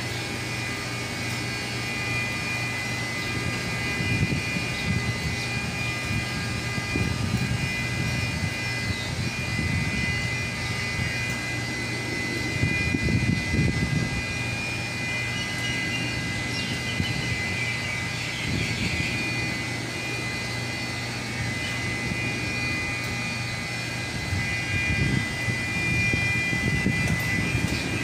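Steady mechanical drone of running machinery, with irregular low rumbles from wind buffeting the microphone.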